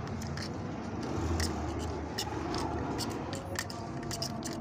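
Small knife blade scraping hardened filler off the repaired joint of a graphite badminton racket shaft: quick, irregular scraping strokes and clicks over a steady low hum.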